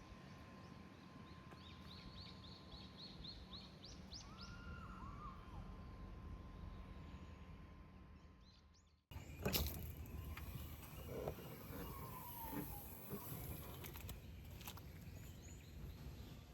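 Faint outdoor background noise with a bird singing a quick run of about eight high chirps a few seconds in. About nine seconds in the background changes abruptly to a slightly louder, fuller hiss with a few clicks.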